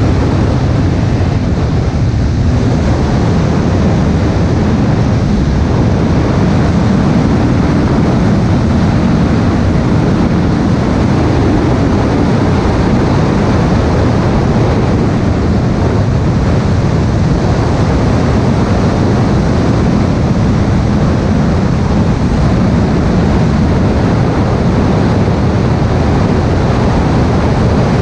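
Steady rushing noise of a car driving along at an even speed: tyre roar on the asphalt mixed with wind rush, heaviest in the low range and unbroken throughout.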